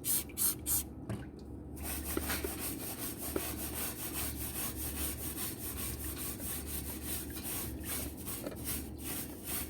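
Hand scrubbing of greasy barbecue grill tools coated with degreaser, a run of quick, even back-and-forth rubbing strokes, slower and more separate in the first couple of seconds.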